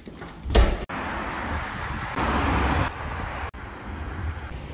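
Road traffic on a wet street: steady tyre and engine noise from passing cars, louder for a moment around two seconds in, broken by two abrupt cuts. A brief loud burst of noise comes about half a second in.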